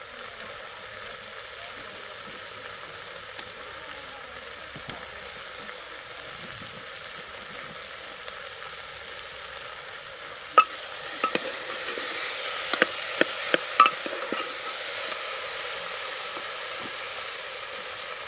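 Curry sizzling in a steel pot over a wood-fired clay stove, a steady frying hiss. A little past halfway it grows louder for a few seconds, with a handful of sharp clicks and pops.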